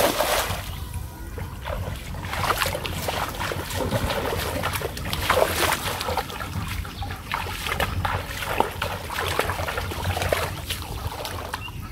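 Cast net slapping down onto shallow floodwater with a splash, followed by uneven sloshing and splashing as the net and its hand line are hauled back in through the water.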